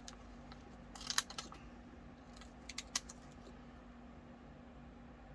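A few light clicks and ticks from small craft pieces being handled, in two brief clusters about a second and three seconds in, over a faint steady hum.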